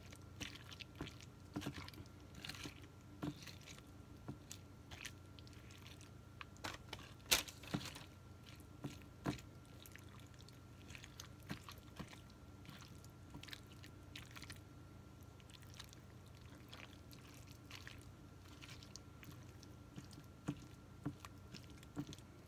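Rubber spatula stirring a thick, wet filling of chicken, frozen mixed vegetables and canned cream soups in a pie crust: faint, irregular squishing and scraping with small clicks, the sharpest about seven seconds in.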